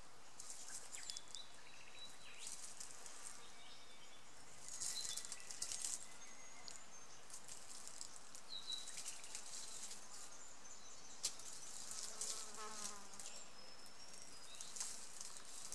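Dry leaf litter rustling and crackling in irregular bursts as a short-beaked echidna forages and pushes through the leaves, with a sharp snap about eleven seconds in. Faint thin bird chirps sound here and there, and a brief insect buzz comes about three-quarters of the way through.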